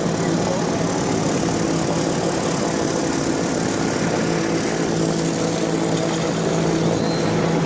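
An engine running steadily at one unchanging pitch, a constant low drone.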